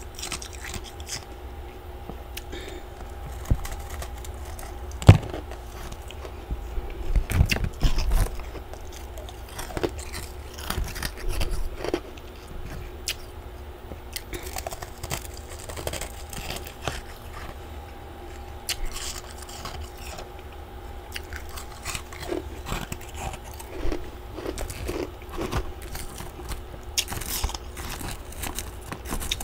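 A person biting and chewing chunks of freezer frost, with irregular crisp crunches and one sharp, loud bite about five seconds in.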